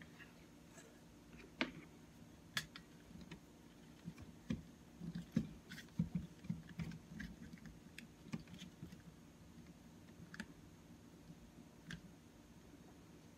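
Light, scattered plastic clicks and taps as a phone is fitted into a tripod's phone-holder clamp. They come thickest in the middle and thin out toward the end.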